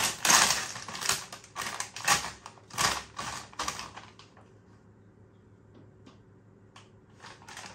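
A Lay's crisp packet being torn open and crinkled in the hands, a run of sharp crackles and rustles that dies away about four seconds in.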